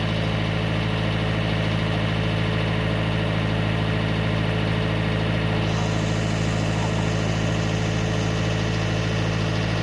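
Mitsubishi MS030 mini excavator's diesel engine idling steadily.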